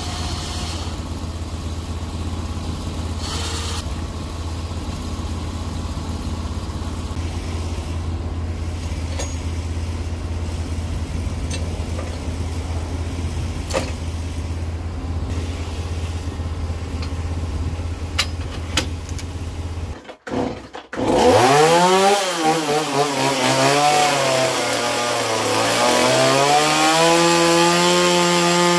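Norwood HD36 bandsaw mill's gas engine idling steadily. After a brief break about two-thirds of the way through, it runs up much louder, its pitch rising and dipping before settling.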